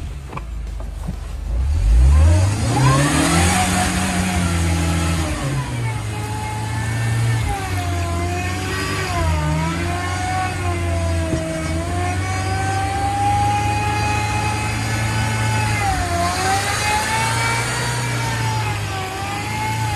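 1996 Jeep Wrangler's four-cylinder engine revving hard while driving through mud: it climbs steeply about two seconds in and is held at high revs, sagging and picking back up a couple of times.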